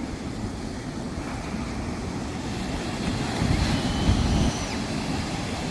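Sea waves washing on a beach with wind buffeting the microphone; a stronger gust rumbles about two-thirds of the way in.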